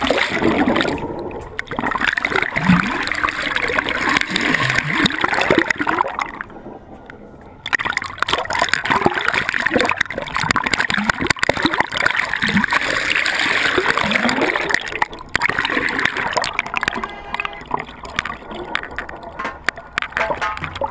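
Sea water splashing and gurgling in a continuous churn, dropping away briefly about six seconds in.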